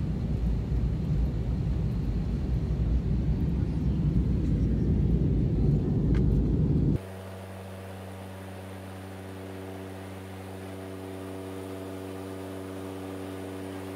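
Steady low rumble of a moving vehicle. About halfway it cuts off abruptly, and a quieter steady hum of several held low tones takes over.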